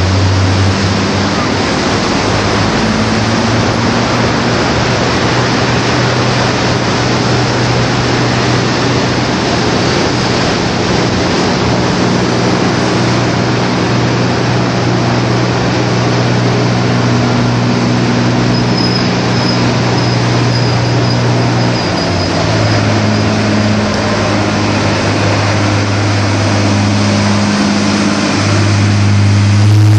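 Diesel engine of a lifeboat launch tractor running as it drives along the road, its engine note shifting a few times, over a steady background rush of noise. It grows louder near the end as it passes close by.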